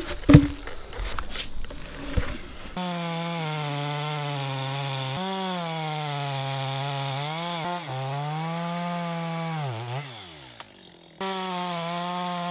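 A few knocks and handling sounds, then a chainsaw engine running at high revs as it cuts through an ash log. The pitch sags and recovers as the chain bites into the wood. About ten seconds in the engine note falls away and dies, then the sawing resumes abruptly near the end.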